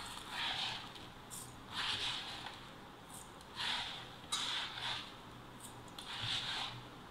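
Dry raw rice scooped up in a steel tumbler and swept into it by hand off a plastic mat: about five short rustling swishes of grains, one every second or two.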